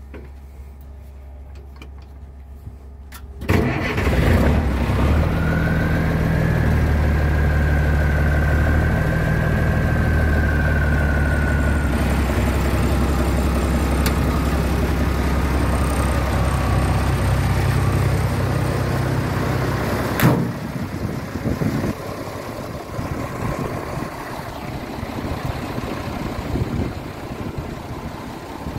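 M35A2 2½-ton army truck's turbocharged six-cylinder multifuel engine starting about three and a half seconds in, then idling steadily, with a thin high whine for several seconds after it catches. About twenty seconds in the sound drops to a quieter, rougher engine sound with wind noise.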